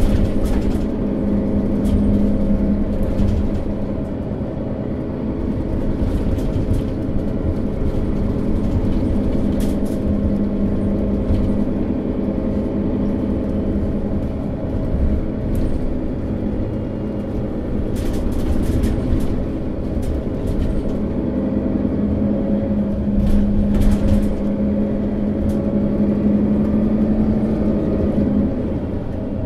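Setra S415 NF city bus's diesel engine running steadily, a constant low hum with a few brief clicks and rattles partway through.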